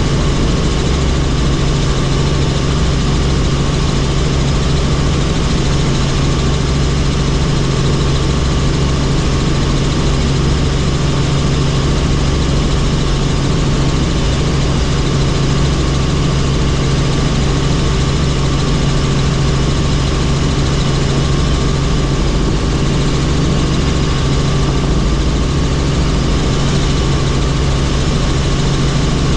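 Helicopter engine and rotor running steadily: a constant, unchanging drone with a strong low hum and a few higher steady tones over it.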